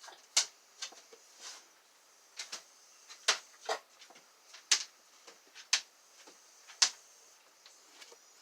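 About ten sharp, irregularly spaced light clicks and taps, like small hard objects being handled and knocked together.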